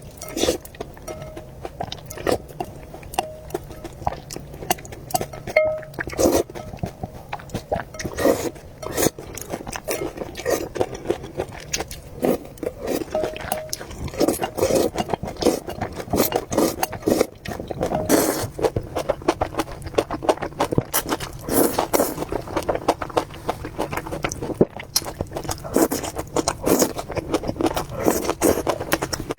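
Close-miked eating of noodles: wet chewing, mouth smacks and occasional slurps, many irregular clicks and short bursts one after another.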